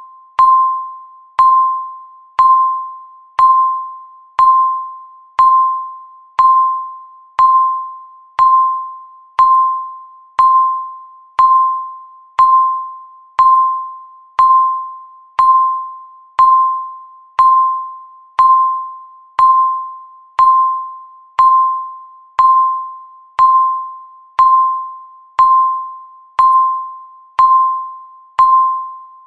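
Countdown timer's tick sound, one short pitched electronic ding each second. Every ding is the same note, with a sharp start and a ring that fades before the next.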